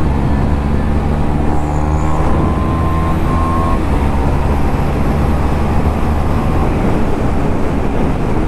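KTM Duke 390's single-cylinder engine, breathing through an aftermarket Akrapovic exhaust, pulling hard under full acceleration from about 55 to over 120 km/h. The engine note holds and steps several times as the gears change, over steady wind rush at speed.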